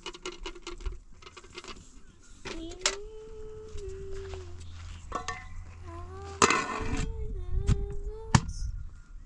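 Two long, drawn-out vocal calls, each held for about two seconds with a slight wavering glide in pitch. A brief loud scrape or rustle comes in the middle of the second call, and a sharp knock follows near the end.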